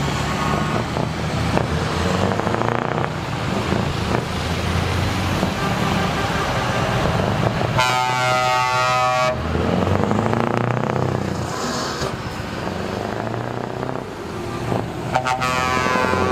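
Show trucks driving past with loud open exhaust pipes, their engines rumbling steadily among passing car traffic. A truck air horn blasts for about a second and a half around the middle, and another horn starts near the end.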